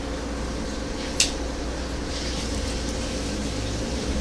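A steady low room hum with one short, high tick about a second in as a small flathead screwdriver works a slotted grub screw on an RDA's coil post, tightening down the coil leads.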